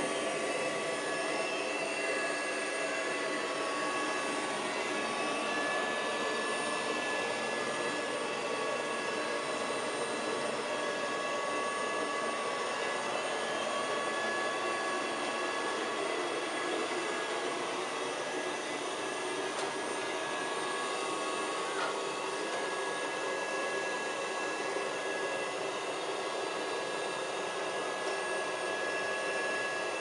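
Miele Scout RX3 robot vacuum cleaner running on carpet: a steady whir of its suction fan and brushes, with a constant high-pitched whine over it.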